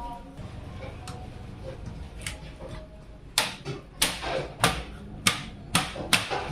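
A series of six sharp clicks, about two a second, starting about three and a half seconds in.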